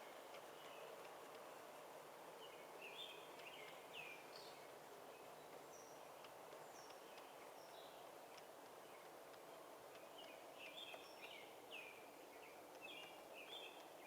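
Faint steady outdoor background noise, with a small bird chirping in two quick runs of short notes: one about three seconds in and one near the end.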